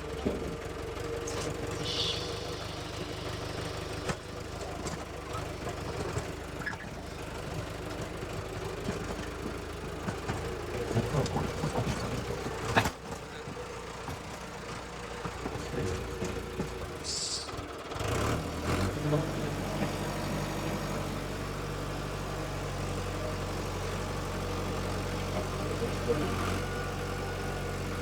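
Tractor engine running with uneven knocks and rattles, then about two-thirds of the way in it settles into a steady idle.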